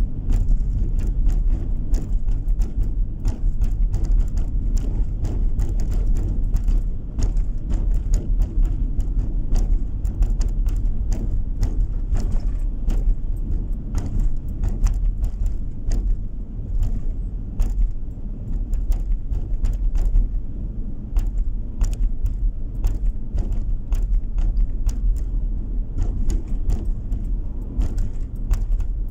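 Road noise heard inside a moving car's cabin: a steady low rumble of tyres and engine at cruising speed, with frequent small rattles and clicks from inside the car.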